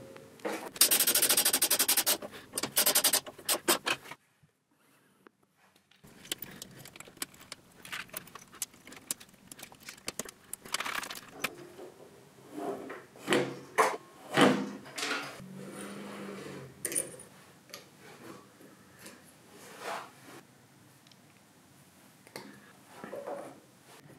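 Hand tools and small metal parts being handled while a Vespa handlebar is reassembled with its control cables. A fast run of clicks comes near the start, then scattered clinks, taps and scrapes of metal on metal, broken by a couple of seconds of near silence a few seconds in.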